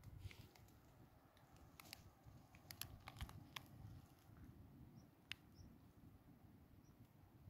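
Near silence: a faint low rumble, with a scatter of faint sharp clicks about two to three and a half seconds in and one more a little after five seconds.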